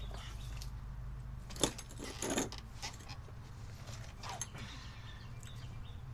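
A few short, light metallic clinks and rattles from hands and tools working under a truck's chassis, the loudest about a second and a half in, over a steady low hum.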